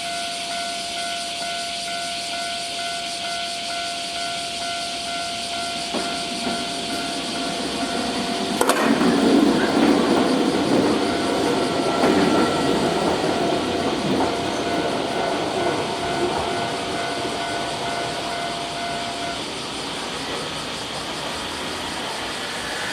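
Railway level-crossing warning bell sounding steadily while a train passes over the crossing. The train's rumble starts suddenly about 9 s in, is loudest for the next few seconds and then fades, and the bell stops about 19 s in.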